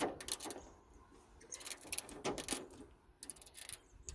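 Wrench loosening a starter mounting bolt: short runs of sharp metallic clicks at the start and again about two seconds in.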